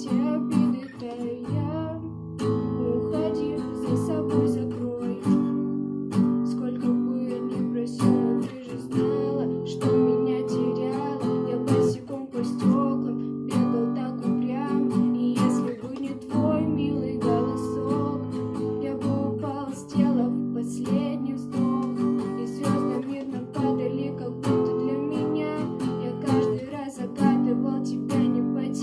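Pop song's instrumental intro led by acoustic guitar, strummed and plucked chords in a steady rhythm.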